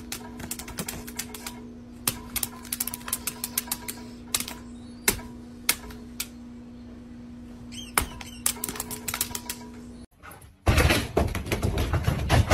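Dog's claws tapping and clicking on a tablet's glass screen: irregular sharp clicks, some in quick runs, over a steady low hum. About ten seconds in, the clicking stops and a loud rough noise takes over for the last two seconds.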